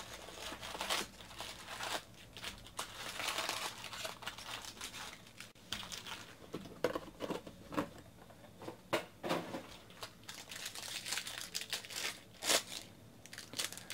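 Foil-wrapped baseball card packs crinkling and rustling as they are pulled from a cardboard hobby box and handled, with a pack wrapper being torn open near the end.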